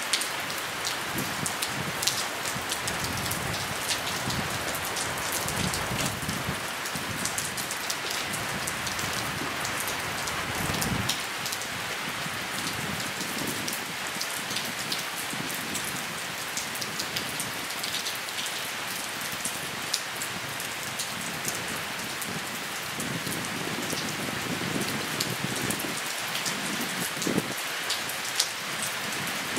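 Steady rain falling, an even hiss with many individual drops ticking close by.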